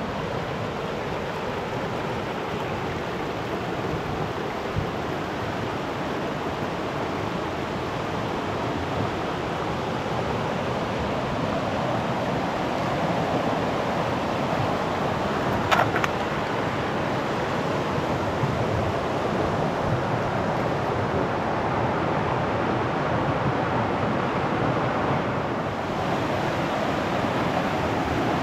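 Mountain creek rushing over rocks and small rapids, a steady water noise that slowly grows louder. One brief sharp click about halfway through.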